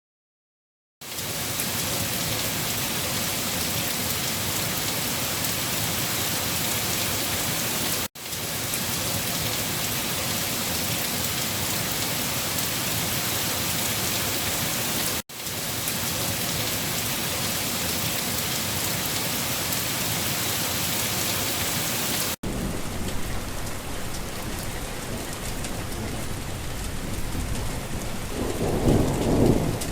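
Steady heavy rain that starts about a second in, with three brief dropouts where the recording is spliced. Near the end comes a low rumble of thunder.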